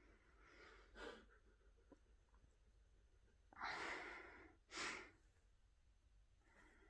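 Quiet breathing: a faint breath about a second in, then a long breath about three and a half seconds in and a short one just after it.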